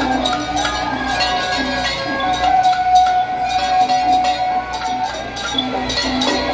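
Traditional temple-procession music: a metallic, cowbell-like percussion beat struck about twice a second under other sharp percussion strikes, with a long held wind note from about two seconds in to about five seconds in.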